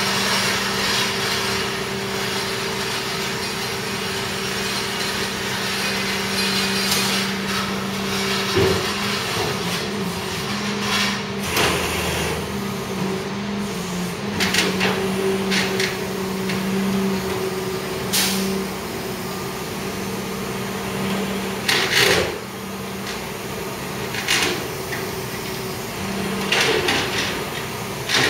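A truck engine running steadily, with scattered knocks and wooden creaks and clatters, about half a dozen, as the crated four-post lift slides along the deck on skates.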